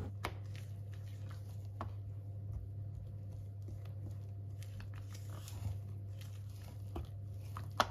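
Spatula stirring wheat flour into a wet grated-potato batter in a stainless steel bowl: faint scraping with soft clicks against the bowl, and a sharper click near the end. A steady low hum runs underneath.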